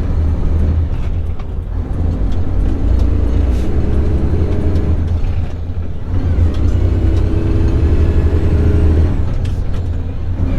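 Semi truck's diesel engine running under way, a steady low rumble whose pitch shifts a little.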